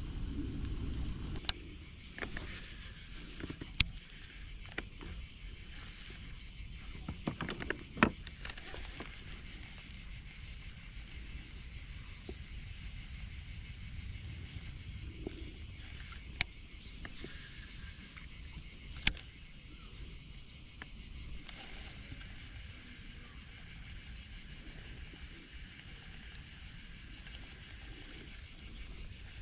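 Steady high-pitched insect chorus, with a few short sharp clicks here and there.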